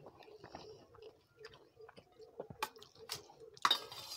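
Quiet meal sounds: soft wet squishes of rice and curry worked by hand, and scattered clicks of a steel serving spoon against steel pots, with a louder clatter near the end.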